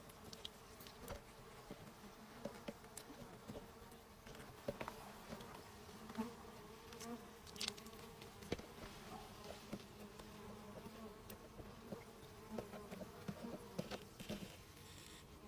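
Honeybees buzzing steadily around their hive in a dense swarm, with scattered small clicks and crackles throughout.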